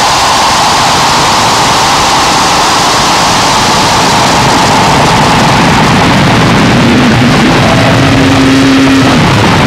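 Harsh noise music: a loud, unbroken wall of static-like noise, with a faint held tone in the middle and a low tone that comes in about seven seconds in and drops out near the end.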